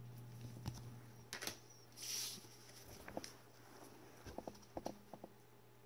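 Faint handling noise of trading cards in hard plastic top-loaders held in nitrile-gloved hands: scattered clicks and taps, a short rustle about two seconds in, and a cluster of small clicks near the end, over a low steady hum.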